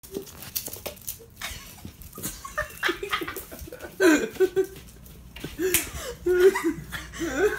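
People laughing and giggling in short repeated spells, loudest about four seconds in and again near six seconds. A few light taps and scuffs come in the first second or so.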